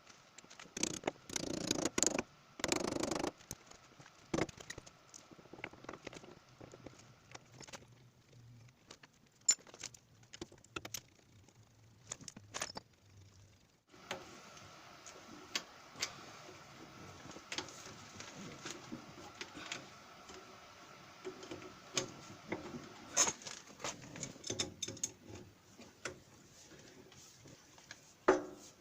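Scattered clinks, taps and rattles of small metal parts and tools being handled, busiest about a couple of seconds in.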